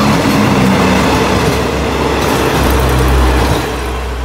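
Diesel multiple-unit express train, its cars powered by Cummins NTA855-R1 diesel engines, passing close at speed: a loud, steady rush of wheels on rail with engine drone, and a deep engine hum that comes in strongly about two and a half seconds in and eases slightly near the end as the train moves away.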